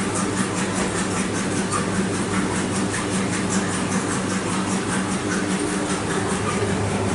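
LG commercial front-load washer with inverter direct drive running mid-cycle: a steady machine hum with a fast, even ticking on top, about four ticks a second.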